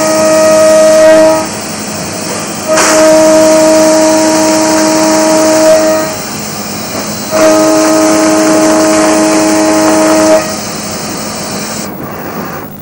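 Mazak CNC machine running, with a steady whining tone over a continuous hiss. The whine sounds three times, each for about one and a half to three seconds with short breaks between, at the same pitch each time.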